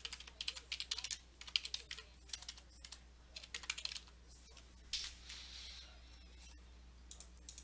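Computer keyboard typing: quick runs of keystrokes with short pauses between them.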